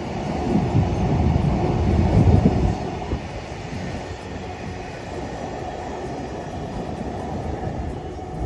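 A train running on the rails: a loud low rumble for about the first three seconds, then a steadier, quieter rumble.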